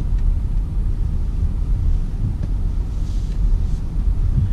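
Steady low rumble of a BMW X5 xDrive50i on the move.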